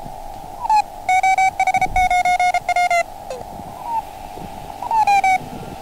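Lab599 Discovery TX-500 transceiver receiving Morse code (CW) through its speaker. A single keyed tone sounds in dots and dashes over a narrow band of filtered receiver hiss, about a second in until three seconds. Around it, short tones slide down in pitch as the radio is tuned across signals.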